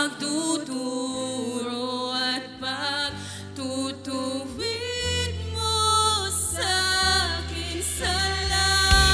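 Two women singing a Tagalog worship song with a live band of electric bass, drums and acoustic guitar. Strong low bass notes come in about halfway through.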